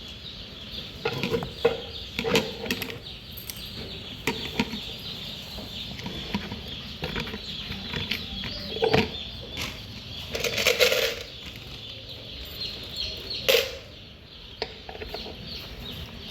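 Hard plastic parts of a chick feeder clacking and knocking as it is fitted together, in a string of sharp irregular clacks with a louder rattle about halfway through. Day-old chicks cheep steadily underneath.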